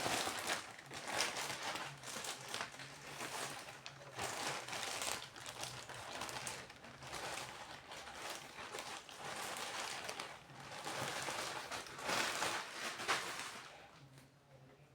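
Packaging crinkling and rustling in irregular bursts as a plush toy is handled and unwrapped, dying away near the end.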